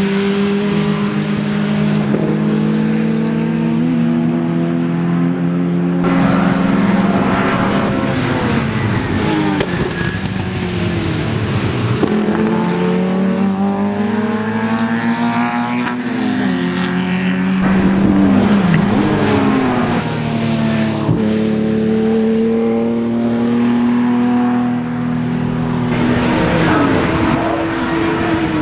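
Historic racing cars' engines at racing speed, one car after another, the revs rising and falling repeatedly through gear changes and braking for corners. The engine note changes abruptly a few times from car to car.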